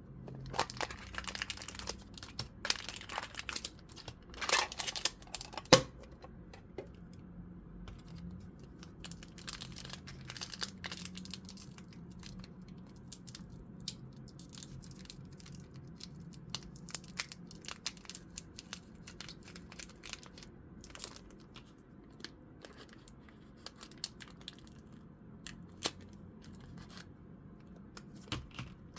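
Foil booster-pack wrappers crinkling and tearing as Pokémon card packs are handled and opened, with one sharp click about six seconds in. After that only scattered light crinkles and taps.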